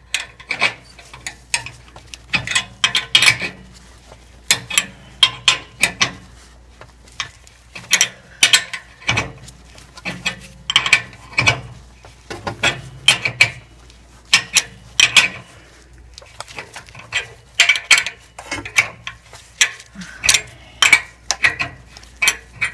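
Ratchet wrench clicking in short runs of strokes with brief pauses, turning a stud extractor that is backing a rusted, broken exhaust stud out of the oxygen sensor flange.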